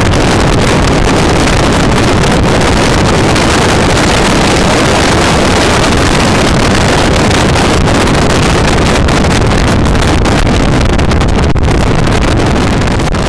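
Heavy wind buffeting on the microphone of a car driving fast on a race track, with engine and road noise as a steady rumble beneath it. It begins to fade out near the end.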